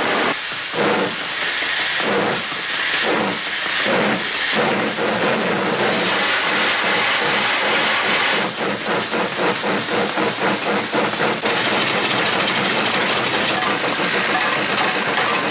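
Steam-locomotive sound effect made for a 1941 Disney cartoon: a steady hiss of steam with chuffing, slow at first, then a quicker, even chuff-chuff about halfway through.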